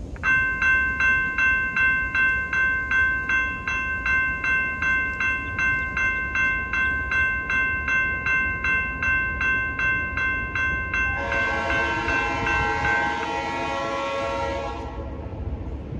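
Railroad crossing signal's General Signals Type 2 electronic bell starts up and rings in even strokes, a little over two a second, as the crossing activates; it stops about thirteen seconds in, once the gates are down. About eleven seconds in, an approaching train's horn sounds one steady blast of about four seconds.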